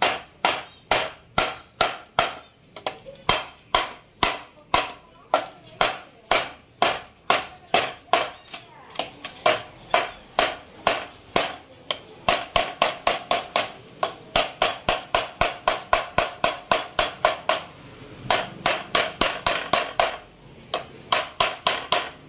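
A mallet tapping on the Yamaha RX135's aluminium crankcase, steady sharp taps about two a second that quicken to about four a second midway and pause briefly near the end: driving the two crankcase halves together.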